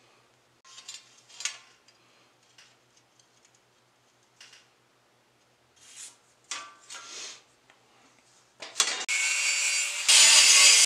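A few short scrapes of a marker and a steel straightedge being drawn across steel flat bar. About nine seconds in, an angle grinder with a cut-off wheel starts up and cuts into the steel bar, a loud, steady grinding that gets louder a second later as the wheel bites.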